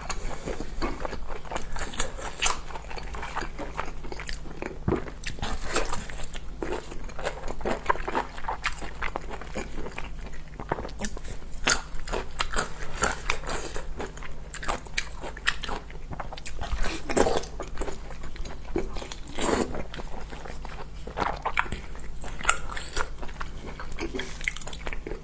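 Close-miked eating: a person biting and chewing food, with many short clicks from the mouth coming irregularly throughout.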